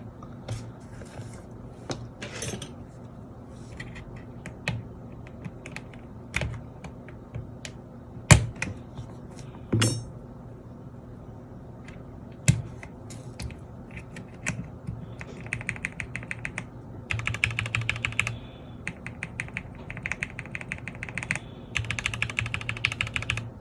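Mechanical keyboard with Gateron Pro Yellow linear switches: scattered single clicks and knocks for the first dozen seconds or so, then fast typing in several bursts.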